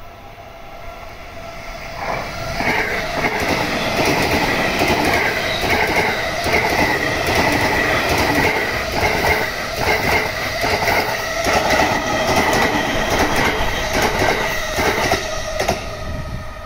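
JR East E217-series electric rapid train passing at speed. It grows loud over the first few seconds as it arrives, then the wheels give a dense clatter over the rail joints under a steady high-pitched ring, easing off near the end.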